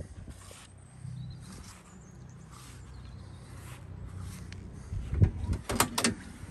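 Footsteps on grass, then the front door of a 1965 Ford Galaxie station wagon being opened about five seconds in: a latch click and a few metallic clunks, the loudest sounds here.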